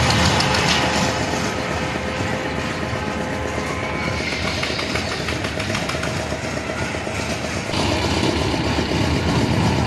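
Fairground toy train rolling along its elevated steel track, heard from aboard: a steady rumble of wheels on rail with repeated clacking, getting louder about eight seconds in.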